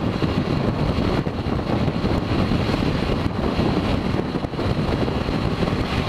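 Heavy wind buffeting the camera microphone on a motorcycle riding at expressway speed in strong gusty wind: a dense, low rumbling rush that keeps rising and falling.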